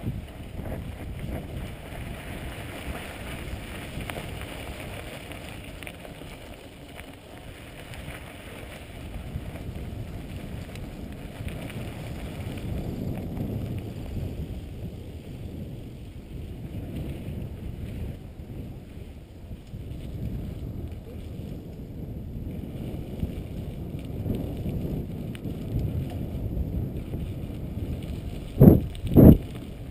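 Mountain bike riding on a sandy dirt track: wind buffeting the action-camera microphone over the rumble and rattle of tyres and frame on the rough ground. Two short loud knocks about half a second apart near the end.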